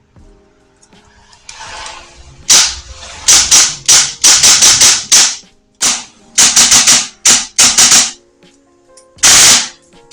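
Airsoft electric gun with a split gearbox, brushless T238 motor and 13:1 short-stroked gearset, test-firing BBs in sharp single shots and short rapid full-auto bursts, the gearbox cycling with each shot. It fires about 26 rounds a second on full auto.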